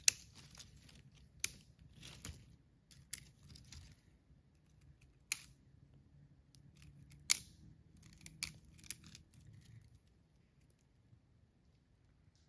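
Thin dry twigs snapped by hand: about seven sharp snaps spread over some ten seconds, with light rustling of kindling in between, stopping shortly before the end.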